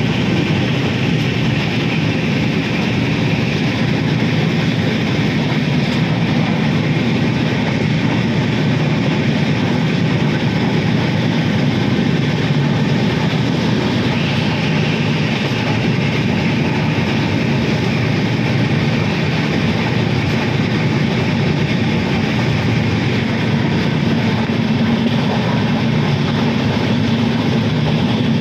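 Steady rumble of a train running across a railway bridge, heard from on board.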